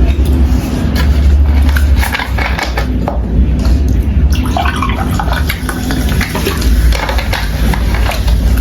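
Close-up mukbang eating sounds: wet slurping and chewing of noodles, with utensils clicking against the dish.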